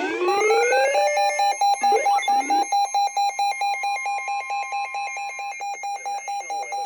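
Electronic emergency alert alarm: a couple of rising sweeps, then rapid beeping on one steady pitch, about four beeps a second.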